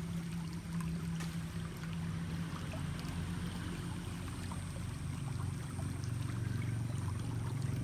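Water running and pouring over a steady low hum, with scattered small clicks and taps.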